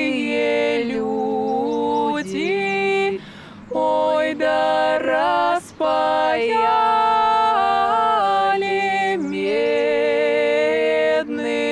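A cappella vocal group singing held chords in harmony with no instruments, the voices shifting together from chord to chord, with a short break about three seconds in.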